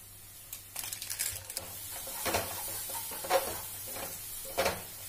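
A wooden spatula stirring and scraping a thick spice masala around a nonstick frying pan, with the masala sizzling in oil as it fries. The stirring starts about a second in, with a few louder scrapes against the pan.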